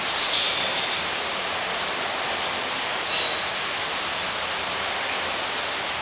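Steady rushing noise of falling water from the tropical house's indoor waterfall, with a few brief high chirps in the first second and a short high whistle about three seconds in.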